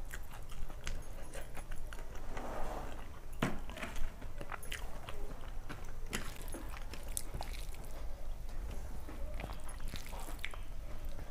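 Close-miked eating sounds: chewing and wet mouth sounds as rice and curry are eaten by hand, with fingers mixing food on a steel plate. Scattered sharp clicks run throughout.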